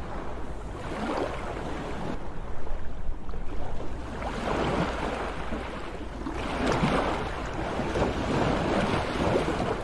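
Sea waves breaking and washing ashore in several swelling and fading surges, over a steady low rumble.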